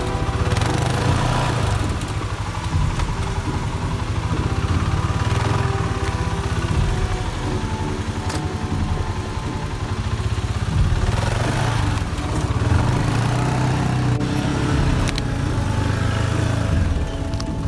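Arctic Cat 550-class ATV engine running under load and rising and falling in revs as the quad works its way over a pile of wet logs. A few sharp knocks are heard, the clearest about eight seconds in.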